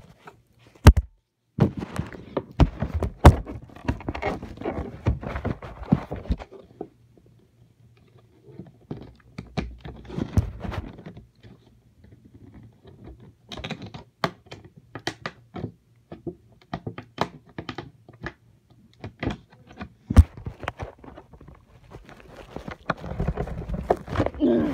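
Hands struggling to open a cardboard-and-plastic doll box: irregular thunks, knocks and clicks of the packaging and the handheld phone being handled, with rustling, and a short quiet spell in the middle.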